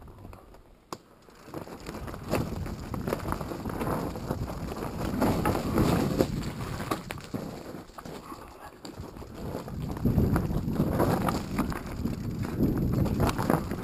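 Mountain bike descending a rocky, loose-gravel singletrack: tyres crunching over stones with many quick rattles and knocks from the bike, louder in two stretches about five seconds in and again near the end.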